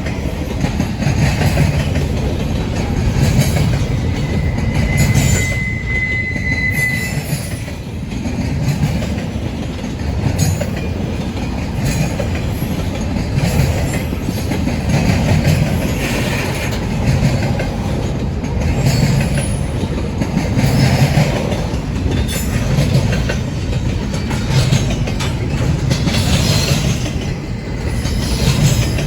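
Empty coal train's cars rolling past, with a steady low rumble and wheels clicking over the rail joints. A brief high wheel squeal comes about five seconds in.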